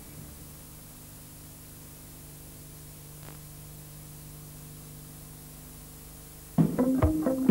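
Steady hiss with a low hum from the soundtrack between two pieces of music; near the end, music with sharp plucked or struck notes starts abruptly.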